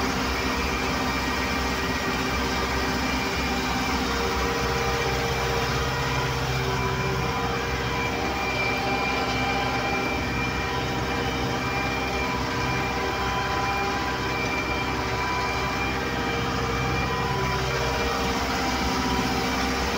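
SAME Leopard 90 Turbo tractor's turbocharged diesel engine running steadily under load while pulling a subsoiling implement through the soil, heard from the driver's seat.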